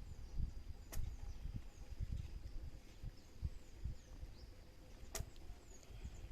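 Quiet outdoor background: faint high bird chirps over a steady thin high tone, with irregular low rumbling thuds and two sharp clicks, about four seconds apart.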